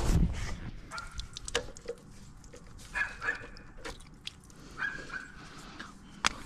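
Hose fittings clicking and rattling as a hose is taken off a pressure washer's pump and the hoses are gathered up, with a few short high squeaks; the engine is off.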